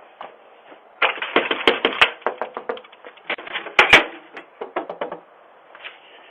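A rapid, irregular run of clicks and knocks lasting about four seconds, with the sharpest hits about two seconds and four seconds in.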